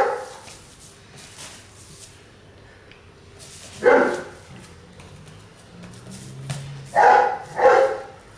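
A dog barking in short single barks: one at the start, one about four seconds in, and two in quick succession near the end.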